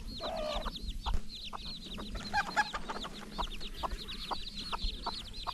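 Newly hatched chicks peeping, a rapid stream of high falling chirps, with a mother hen clucking low among them.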